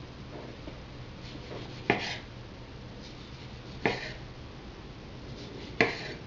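Chef's knife slicing a tomato on a wooden cutting board: a brief soft rasp of the blade through the tomato, then a sharp knock as it meets the board, three times about two seconds apart.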